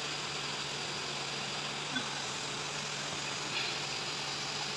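Steady machinery hum with a constant broad hiss behind it, and a single faint click about two seconds in.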